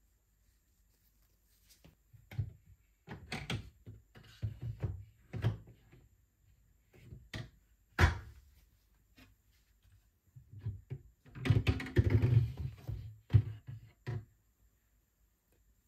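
Glass fridge shelves with plastic trim being lifted out and handled: a series of knocks, clunks and rattles of glass and plastic. There is one sharp knock about eight seconds in and a busy stretch of clattering shortly before the end.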